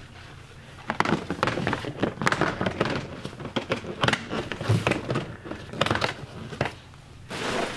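Plastic Nerf blasters knocking together in a plastic storage tote, then the tote's plastic lid set on and pressed into place: a run of irregular clacks and clicks.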